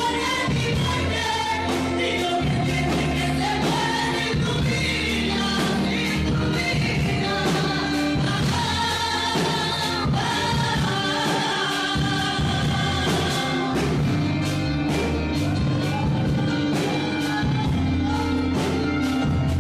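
Several voices singing a worship song together over instrumental backing with a steady bass line.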